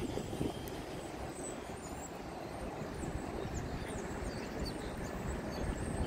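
Steady low rumble of highway traffic on the high bridge overhead, mixed with the engine noise of a lake freighter passing close by.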